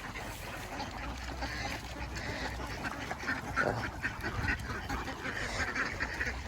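A flock of domestic ducks quacking, many short quacks overlapping, growing busier about halfway through.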